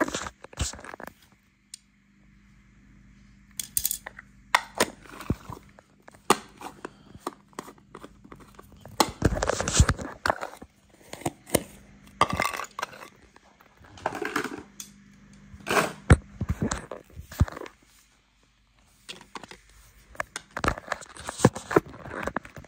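Hands handling small plastic toys: a plastic jar's screw lid twisted and pieces clicking, knocking and rustling in irregular bursts, with short quiet gaps.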